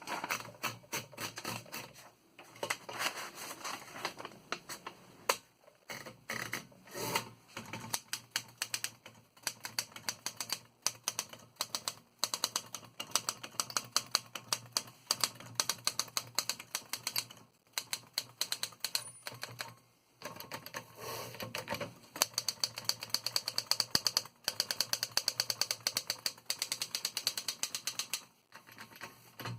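1924 L.C. Smith & Bros No. 8 manual typewriter being typed on: quick runs of sharp key strikes, several a second, broken by short pauses.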